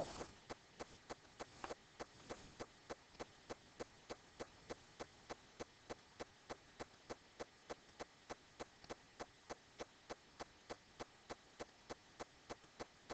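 Faint, steady ticking: evenly spaced sharp clicks, nearly three a second.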